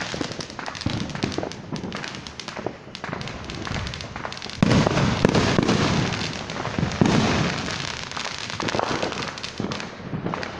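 Fireworks going off: a dense, continuous run of crackling pops that suddenly grows louder about halfway through, then eases off toward the end.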